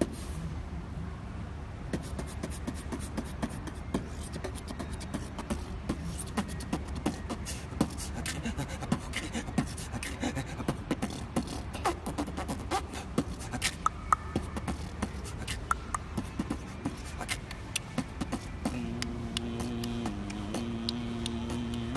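A man beatboxing: a fast, uneven stream of sharp mouth clicks and snare-like hits. A low voiced tone that steps up and down in pitch joins in near the end.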